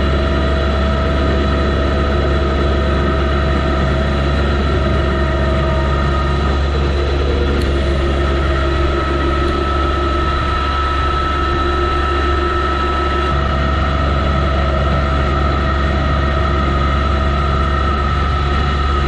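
John Deere 2025R compact tractor's three-cylinder diesel running steadily under load, powering its front-mounted 54-inch two-stage snow thrower through light snow. A steady high whine rides over the engine's low hum.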